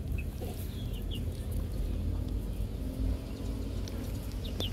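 Outdoor rural ambience: a steady low rumble with a few faint, short bird chirps, and a single sharp click near the end.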